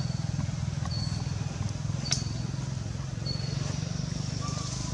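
A steady low hum with a fast pulse, like a distant idling engine. Over it, a short high-pitched peep repeats about once a second, and there is a single sharp click about two seconds in.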